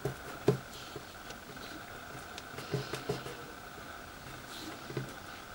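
Fingers pressing and rubbing transfer tape down onto vinyl on a hard countertop: a few soft taps and light rubbing.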